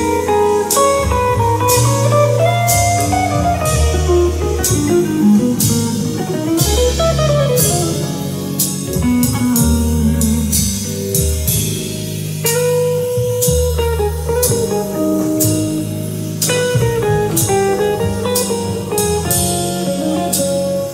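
Recorded music with guitar, bass and drums keeping a steady beat, played back over Tannoy Eclipse hi-fi loudspeakers driven by an Onkyo Integra A-9711 amplifier and picked up in the room.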